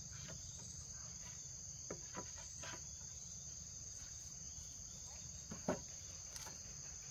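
Steady high drone of insects, with a few light knocks of green bamboo poles being set down on a log frame, the clearest one late on.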